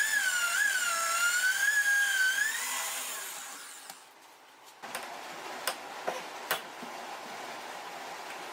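A power tool's motor whines, wavering in pitch as it works, then winds down and stops about three seconds in. After a short pause, a steady hiss starts, with a few sharp clicks.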